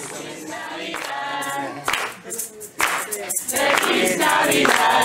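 A mixed group of young men and women singing a Christmas song together, in phrases broken by short pauses.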